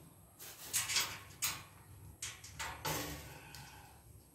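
Metal parts of a white wire dish drainage rack rattling and scraping as the frame is handled and a joint is fastened with an Allen key: several short clatters and scrapes, the last about three seconds in.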